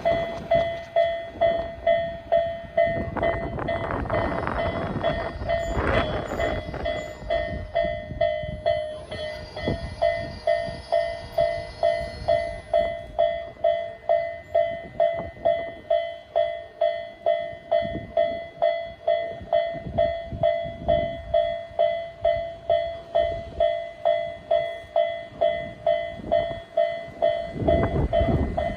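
Japanese electronic level-crossing alarm of the Isesaki type, dinging steadily about twice a second. A train runs past a few seconds in, its rumble swelling under the bell, and another rumble starts to rise near the end.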